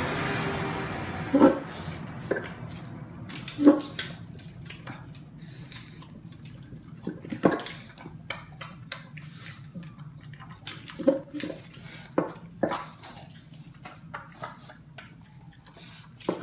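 A pug eating from a hard bowl: irregular clicks and knocks as its muzzle and teeth hit the bowl, with a handful of louder clatters spread through.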